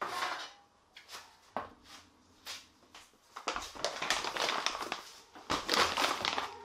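A stainless steel tray set down on a wooden table with a sharp clatter, then a couple of lighter knocks. From about halfway through, a plastic bag of pork ribs crinkles as it is handled.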